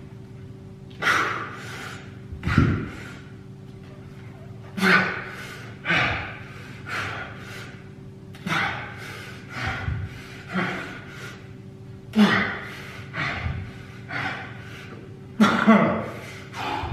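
A man breathing hard and gasping from exertion during high-intensity exercise, with heavy breaths about once a second and a few dull low thumps among them.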